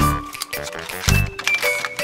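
Background music with a steady beat: held melodic notes over a deep bass hit that lands about once a second, with crisp percussion.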